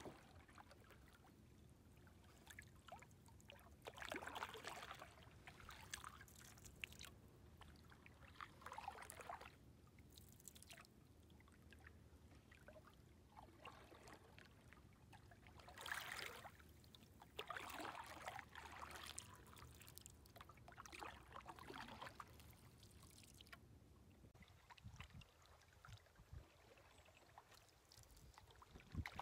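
Faint canoe paddle strokes in calm lake water: a swish and trickle of water with each stroke, every few seconds.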